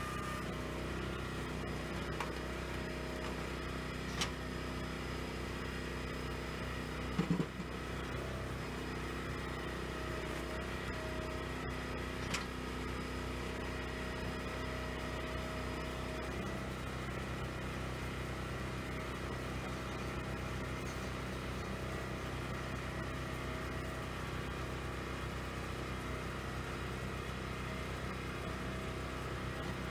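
Firewood processor's engine running steadily, with a few sharp clicks and a brief knock from the machine. The engine note shifts slightly about halfway through.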